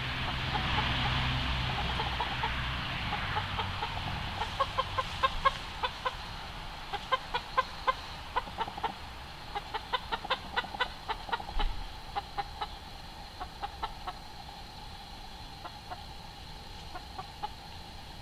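Domestic hens perched high in a tree at roost, giving a run of short, soft clucks, thicker in the middle and thinning out toward the end as they settle for the night.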